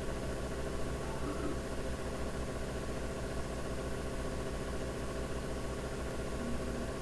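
Steady low background hum, even and unchanging, with no speech.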